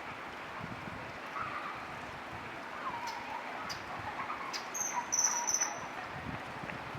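Common kingfisher giving a quick run of shrill, high-pitched call notes about five seconds in, over a steady background hiss.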